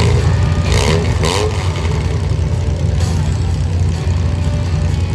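Engines of a field of compact demolition derby cars running together at idle, a loud steady low rumble. About a second in there is a brief higher-pitched burst, like one engine revving.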